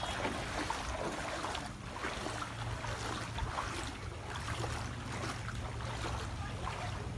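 Feet wading through shin-deep floodwater, sloshing and splashing irregularly with each stride.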